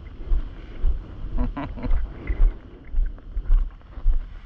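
Footsteps on wet sand, about two a second, each a dull thud jolting the body-worn camera. A short voice-like sound, like a hum or grunt, comes about a second and a half in.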